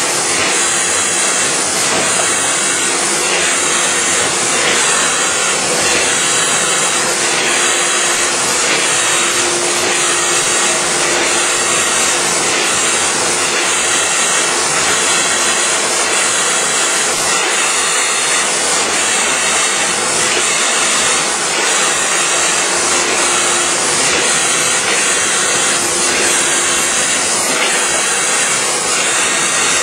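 Steady loud machinery noise with a strong hiss over a faint steady hum: a dry offset cup and pail printing machine and its plant running continuously.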